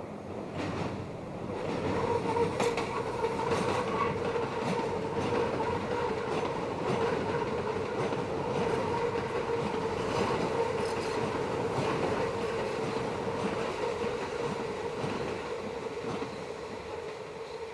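Meitetsu electric train's wheels squealing as it rounds a tight curve: a loud steady tone that sets in about two seconds in and holds, over the rumble and clatter of the wheels on the rails.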